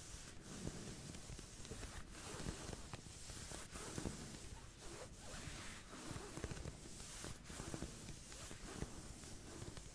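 Soft fingernail scratching, a run of short, uneven strokes, simulating a back scratch.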